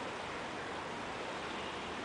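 Shallow river running over rocks in riffles: a steady rushing of water.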